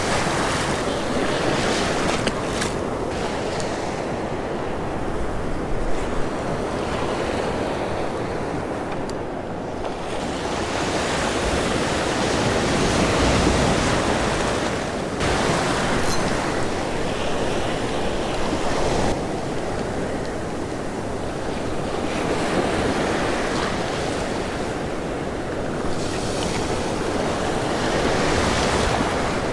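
Breaking surf washing in and out, swelling and easing as each wave comes through, with wind buffeting the microphone. A couple of brief knocks stand out about six seconds in.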